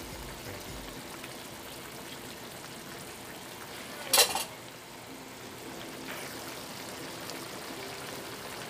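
Sweet-and-sour sauce simmering in a frying pan, a steady low bubbling hiss, with a wooden spatula stirring through it in the first second. One sharp knock about four seconds in.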